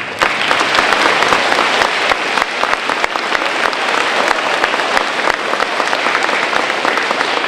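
Audience applauding: a large crowd clapping steadily, starting abruptly at the close of a speech.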